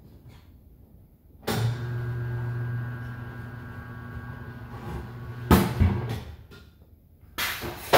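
Tire changer's turntable motor starts suddenly and runs with a steady hum for about four seconds, turning the wheel to mount the tire's first bead. There are a couple of sharp clunks as it stops, and another clunk near the end.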